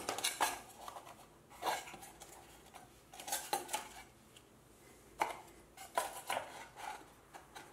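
Irregular light wooden knocks and clicks of laser-cut 3 mm birch plywood box parts being handled and slotted together, a lid set onto the finger-jointed box.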